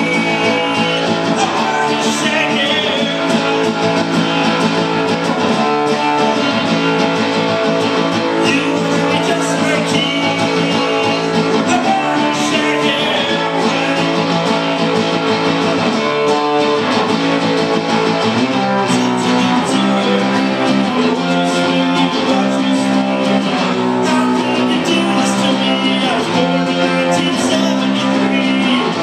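Acoustic guitar strummed in steady chords, the pattern shifting to a new chord sequence about two-thirds of the way through.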